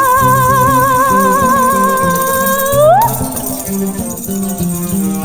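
A woman singing in Russian holds a long high note with even vibrato for about three seconds, then slides quickly upward and stops, over plucked bouzouki and guitar accompaniment. After the voice stops, the strings carry on with a light rattling percussion.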